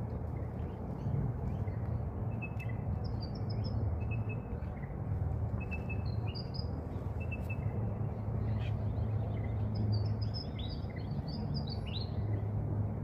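Short, high bird chirps in small clusters over a steady low background rumble, with a busier run of chirps near the end.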